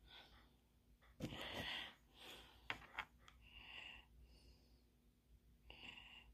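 Near silence: room tone with a faint steady hum, soft breaths, and a couple of small clicks from a plastic glue bottle being turned in the hand.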